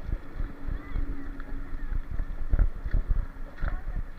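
Bicycle riding over a rough unpaved gravel road: irregular rattling knocks and bumps with wind rumble on the microphone.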